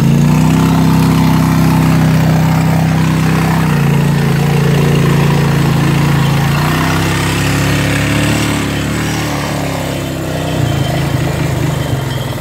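Engine of the Honda ride-on machine running steadily while it drives through a muddy puddle, its pitch stepping down about four seconds in, back up near seven seconds, and down again near the end.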